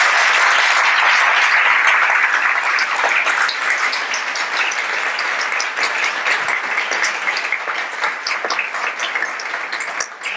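Audience applauding, loudest at first and slowly thinning out into scattered separate claps toward the end.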